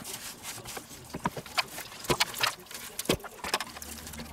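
Gloved hands rubbing and patting a dry spice rub into a raw pork neck in a stainless steel roasting pan: irregular soft slaps, rustles and small clicks.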